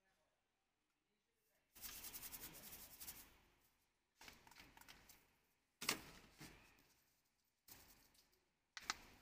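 Plastic crinkling and rattling from handling a plastic spice bag and a plastic bottle: five short bursts that each start suddenly and fade, the first a rapid rattle lasting about a second and a half.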